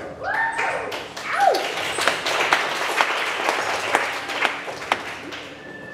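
An audience applauding, with a few rising-and-falling cheering shouts in the first second and a half. The clapping is thickest in the middle and dies away near the end.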